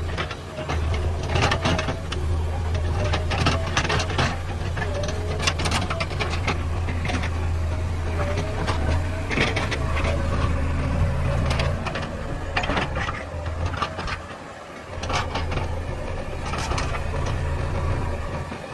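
JCB backhoe loader's diesel engine running steadily at working revs, with repeated clanks and knocks of the digging gear and a wavering higher whine. The engine note drops away about fourteen seconds in, then picks up again.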